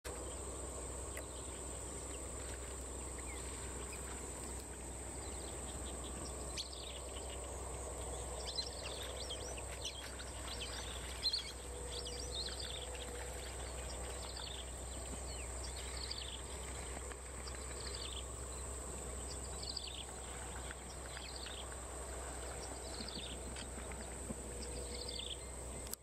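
A steady high insect drone, with a bird giving short, high, falling chirps about once a second through most of the stretch, over a low steady rumble.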